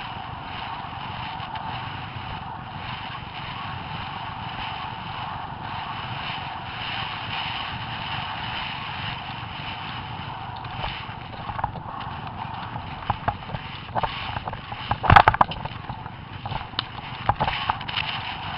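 Eventing horse galloping across country, heard through an onboard camera: a steady rushing noise with the beat of hooves under it. In the second half come scattered sharp knocks and clicks, the loudest cluster about fifteen seconds in.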